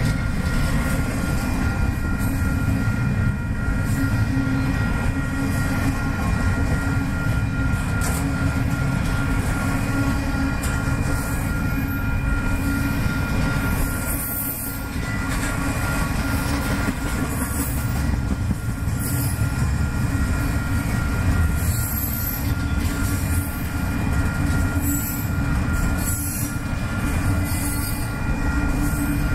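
Double-stack container well cars of a freight train rolling past close by: a continuous heavy rumble of steel wheels on the rails, with a faint steady high-pitched squeal from the wheels running through it.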